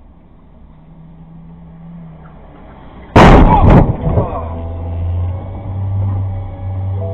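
Head-on car collision: a sudden loud crash about three seconds in, as an oncoming car hits the front of the camera car, with a second smaller knock just after. A steady low hum with a few held tones follows.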